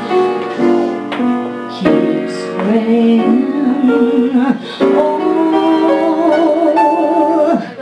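Live jazz ballad music with piano. There are several sustained notes, some held with a wavering vibrato.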